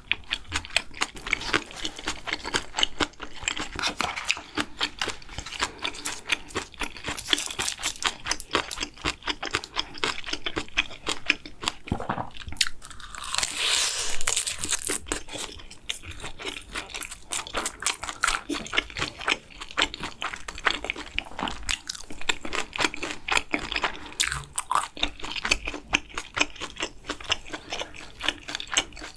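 Close-miked chewing and crunching of a person eating, with rapid wet mouth clicks throughout. About 13 seconds in, a longer breathy hiss lasts a couple of seconds.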